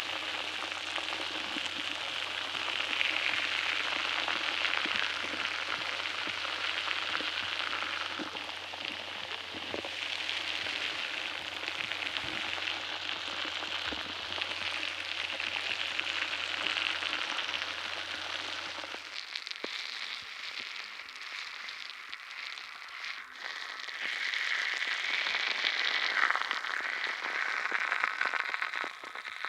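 Crisp, dense fizzing and crackling of many small bubbles in oxygenated water, like a continuous fine effervescence. A low steady hum runs underneath and stops about two-thirds of the way through.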